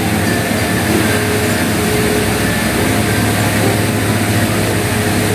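Electric fan running: a steady whir of moving air over a low, even motor hum.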